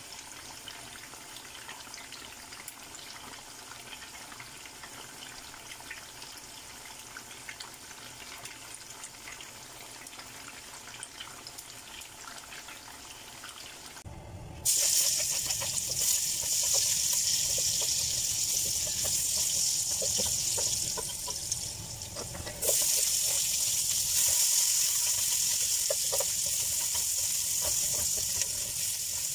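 Spring rolls deep-frying in a pan of oil, with a steady soft bubbling crackle. About halfway through this gives way suddenly to a much louder, hissier sizzle of sliced onions frying, stirred with a wooden spoon.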